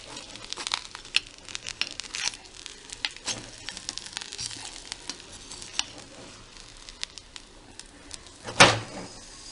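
Ulli appam sizzling in ghee in a heavy pan while it is turned over, with many short scrapes and clicks of a utensil against the pan and one loud thump near the end.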